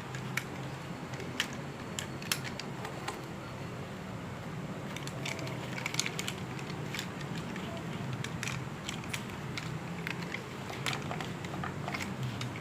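Small plastic transforming toy robot being handled and folded, its parts giving irregular sharp clicks and light rattles, over a steady low hum.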